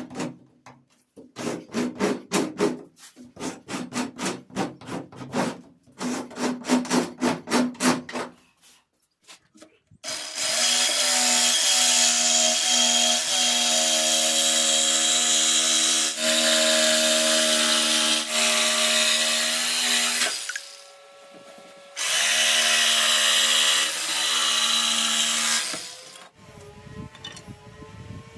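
Four bursts of quick, rhythmic strokes of a tool working wood. Then an electric power tool runs steadily on wood for about ten seconds, stops briefly, and runs again for about four seconds.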